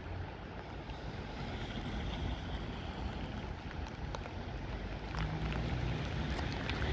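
Wind buffeting the microphone: a low rumble under a steady rush of noise, with a few faint clicks.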